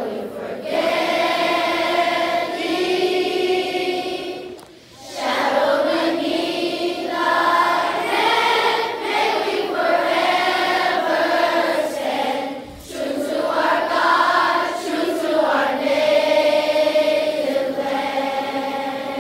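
A large group of children singing together in long, held phrases, with short breaks for breath about five and thirteen seconds in.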